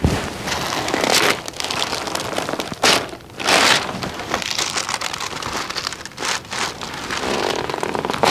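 Rustling and shuffling of bodies and clothing on a treatment table during a chiropractic adjustment, with several louder swishes as the patient is repositioned.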